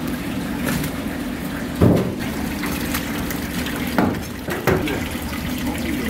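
Water running steadily, as from a kitchen tap, with three sharp knocks: about two seconds in, then twice close together near the four-to-five-second mark.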